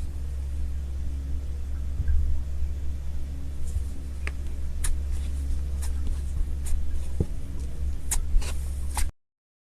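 Slime being squished and pulled by hand, giving scattered sharp crackles and pops that grow more frequent toward the end, over a steady low rumble. The sound cuts off abruptly to silence about nine seconds in.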